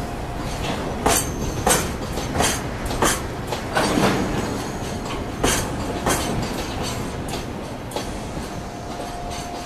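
Gasoline tank wagons of a freight train rolling past over a steady rumble, their wheels clacking over rail joints in an uneven series of sharp clicks. The clicks thin out near the end, when a faint steady squeal comes in.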